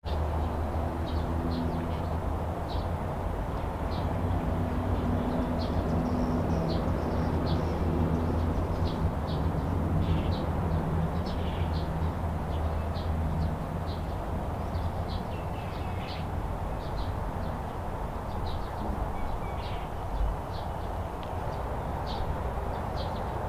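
Outdoor ambience: small birds chirping in short, scattered calls over a steady low hum, which is stronger in roughly the first half.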